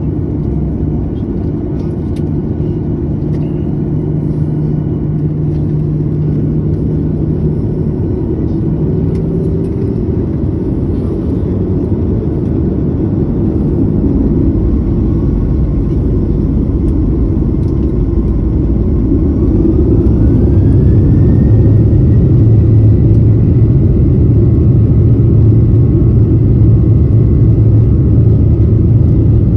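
A Boeing 737's turbofan engines heard from inside the cabin: a steady rumble and hum while taxiing. About twenty seconds in, a whine rises in pitch and then holds, and the noise grows louder as the engines spool up to takeoff thrust.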